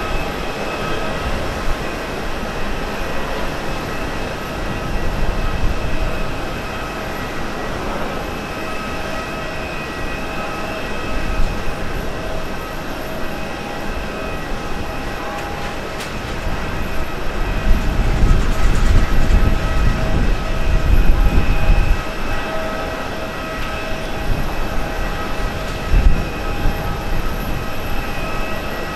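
Boeing 787-9 airliner's Rolls-Royce Trent 1000 turbofans whining steadily at low power as it rolls out and taxis after landing, over a low rumble that swells for several seconds past the middle, with a brief thump near the end.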